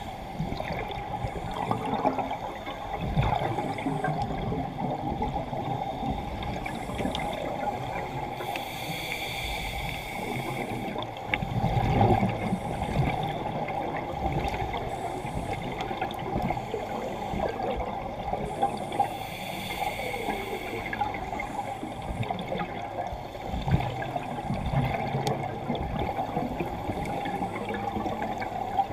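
Scuba diver's regulator heard through an underwater camera housing: exhaled bubbles gurgle up twice, about ten seconds apart, over a steady muffled underwater hiss with low thumps.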